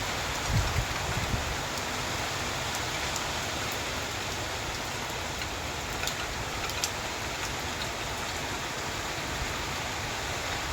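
Steady rain falling, an even hiss with a few sharp drop ticks about six and seven seconds in and some low thuds in the first second.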